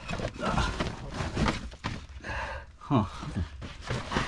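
Scuffing, scraping and rustling of a person crawling out of a narrow, rubble-filled tunnel, with a brief voice sound about three seconds in.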